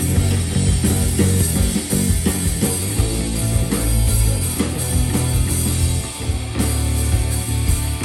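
Rock band playing live, an instrumental passage without vocals: a drum kit hitting steadily over sustained bass and guitar.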